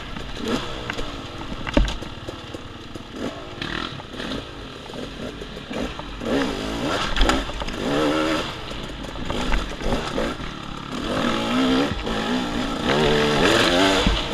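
Dirt bike engine on a woods trail, its pitch rising and falling over and over as the throttle is worked, getting busier and louder about halfway through. A few sharp knocks from the bike over rough ground.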